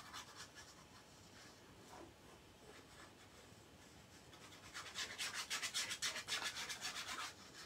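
Paper being handled, rubbing and rustling against card in quick scratchy strokes for about two and a half seconds from about five seconds in, after a faint stretch.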